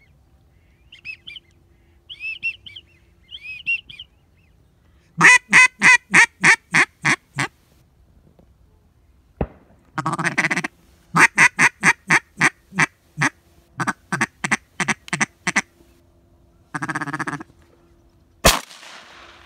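Duck call blown in quacking sequences: a run of about ten loud, evenly spaced quacks that fade down, then a second run of about a dozen. Soft whistled notes come at the start and a sharp bang near the end.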